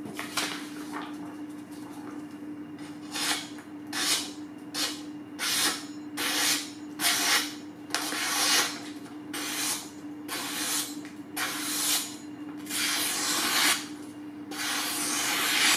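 Cleaver blade slicing down through a sheet of paper in a quick series of short hissing cuts, about one to two a second, the last one longer: a paper-slicing test of the freshly sharpened edge.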